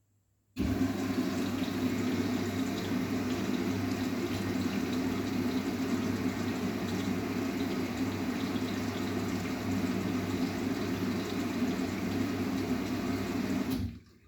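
Water rushing into an Arçelik 9120M washing machine as it fills: a loud, steady gush with a low hum, starting suddenly about half a second in and cutting off sharply near the end.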